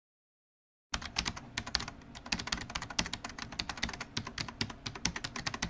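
Computer keyboard typing sound effect: a rapid, uneven run of key clicks starting about a second in.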